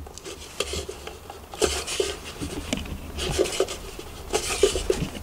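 Hands rubbing and pressing on the inside of a thin wooden box as an LED light is stuck down with double-sided tape: a few separate scuffing rubs with small knocks of wood.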